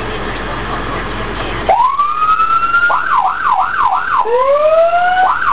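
Emergency vehicle's electronic siren switched on from the dash controller: after steady cabin noise, a tone rises about a second and a half in, changes to fast up-and-down yelp sweeps, and is then joined by a second, lower rising tone, with one more quick sweep near the end.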